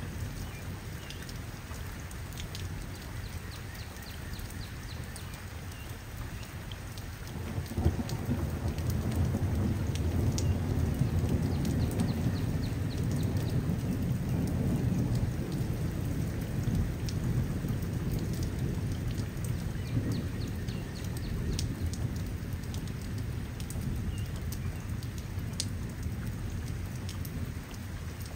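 Steady rain with individual drops ticking, and a long roll of thunder that starts suddenly about a quarter of the way in, rumbles deep for around fifteen seconds and then fades back into the rain.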